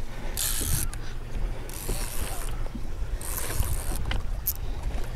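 Fishing reel being wound while playing a hooked marlin: three short bursts of mechanical whirring, about a second apart, over a steady low rumble.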